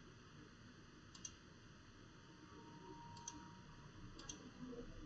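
Faint computer mouse clicks over quiet room tone: a single click about a second in, then two quick double clicks around three and four seconds in.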